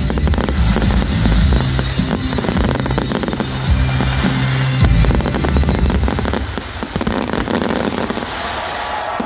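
Fireworks crackling and popping over loud show music with steady bass notes. The music drops away about two-thirds of the way through while the crackling goes on.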